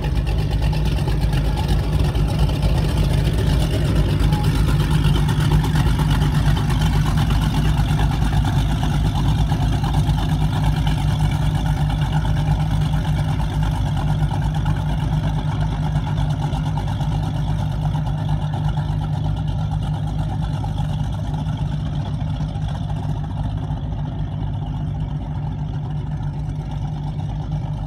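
A Baja Outlaw 33 SST offshore powerboat's engines running at low speed with a steady low exhaust rumble as the boat pulls away, fading a little over the last several seconds.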